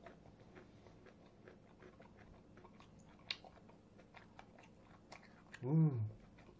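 Close-miked chewing of a mouthful of grilled pork belly: many small wet mouth clicks and crunches. About five and a half seconds in comes a short hummed "mmm" of relish that rises and falls in pitch.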